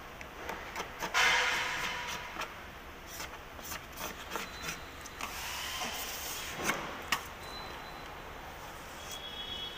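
Old body seam sealer being peeled by hand off a car hood's inner panel: uneven stretches of tearing, rasping noise with scattered small clicks, loudest about a second in.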